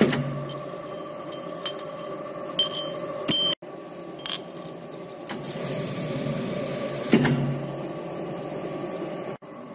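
Thread-rolling machine running with a steady hum while its grooved roller dies press threads into a steel rod, with scattered clicks and knocks. The sound breaks off sharply for a moment about three and a half seconds in and again near the end.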